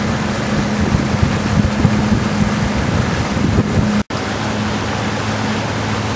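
Pontoon boat's motor running steadily under way, a constant hum under heavy wind buffeting on the microphone and water noise. The sound drops out for an instant about four seconds in.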